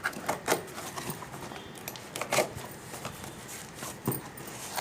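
Cardboard delivery box being opened by hand: a handful of short, sharp rips and crackles of cardboard and packing tape, the loudest a little before halfway.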